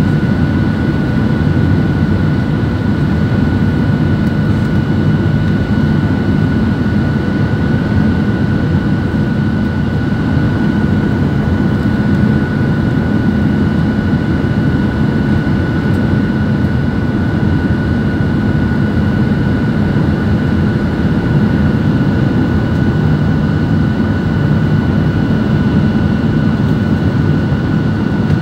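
Steady cabin noise of a jet airliner on its landing approach: a deep, even rush of engine and airflow, with a thin steady whine above it.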